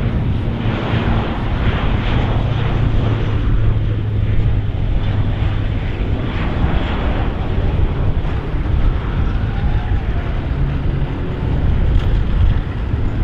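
US Coast Guard HC-130J Super Hercules flying past, its four Rolls-Royce AE 2100D3 turboprops and six-bladed propellers running with a steady low propeller hum over a rushing engine noise.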